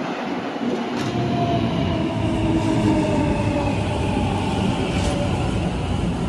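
A train running along a station platform, with a steady rumble and a whine that slowly falls in pitch, plus two brief clicks about a second in and near the end.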